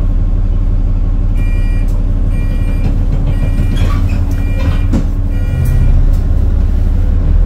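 Bus engine running steadily while the bus is under way, heard from inside the passenger saloon. From just over a second in, a two-tone electronic beep repeats about once a second for a few seconds. Near six seconds the engine note shifts and gets louder.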